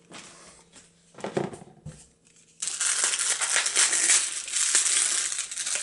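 Cardboard and plastic toy packaging crinkling and crackling as an action figure is taken out of it: a few faint rustles at first, then continuous crinkling from about two and a half seconds in.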